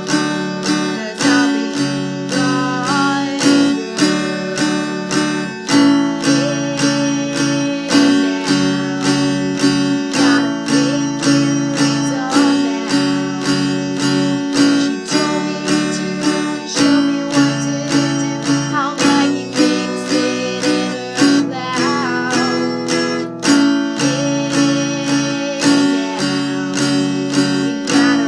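Music of a strummed acoustic guitar, a steady, even strumming rhythm.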